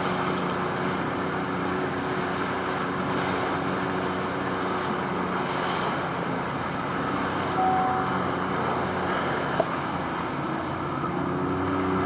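A boat engine running steadily with an even hum, under a hiss of wind and water.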